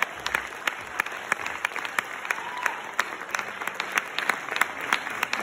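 Small audience applauding in a hall: a steady patter of many hands clapping.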